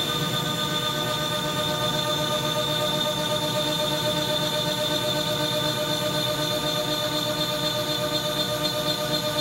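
CNC router spindle running with a spiral bit cutting through walnut: a steady whine made of several even pitched tones, with a high whistle above them and a rough cutting noise underneath.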